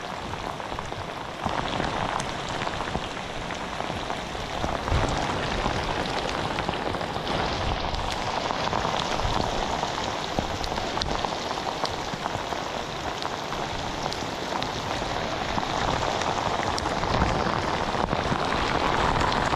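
Heavy rain falling on river water, a steady hiss that gets a little louder about a second and a half in.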